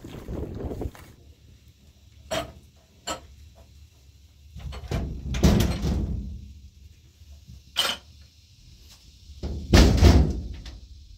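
Metal kitchenware being handled and carried, with a few sharp clinks of the kettle, tray and pots, and two heavier door knocks and thuds, one about halfway and one near the end.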